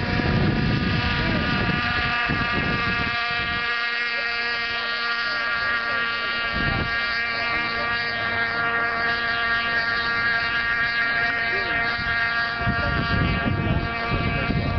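Radio-controlled model boat's motor running out on the water: a steady high-pitched whine that holds one pitch.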